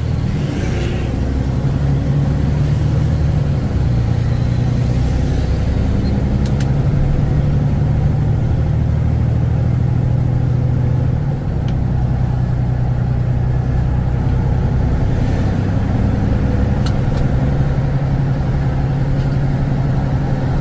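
Diesel engine of a Kenworth T360 concrete agitator truck pulling away from a stop, heard from inside the cab: the engine note climbs and steps through several gear changes, with a brief drop in loudness during one shift about eleven seconds in.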